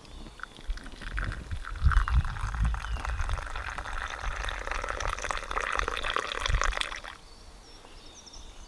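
Coffee poured from an aluminium stovetop moka pot into a wooden cup: a steady stream of liquid for about six seconds that stops abruptly, with a few low thuds along the way.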